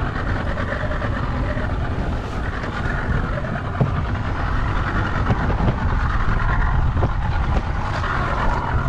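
Wind buffeting the microphone over a small skiff's outboard motor running steadily, with a few light knocks.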